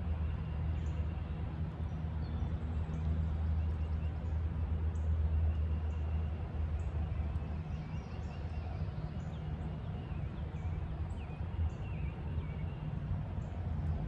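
Woodland ambience: faint, scattered bird chirps over a steady low rumble.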